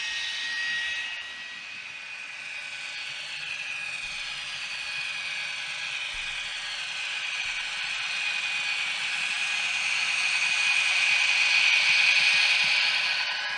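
Diesel locomotive engine sound from a Zimo sound decoder, played through the small loudspeaker of a TT-scale BR 131 model. The engine note glides in pitch and grows louder over about ten seconds, then falls back near the end.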